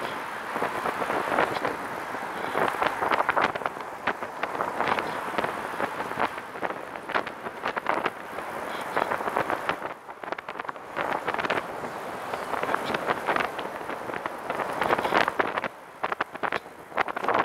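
Wind rushing and crackling over a camera microphone on a moving recumbent trike, mixed with road noise and passing car traffic. The rush swells and eases in gusts, dipping briefly twice.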